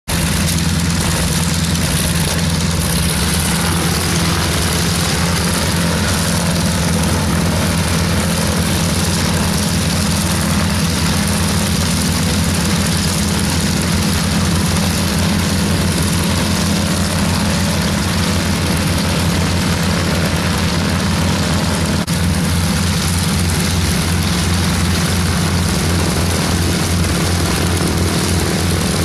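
North American AT-6D trainers' nine-cylinder radial engines running on the ground at low power, a steady loud propeller-engine rumble with a fast low pulsing, mixed with a smaller aerobatic plane's engine.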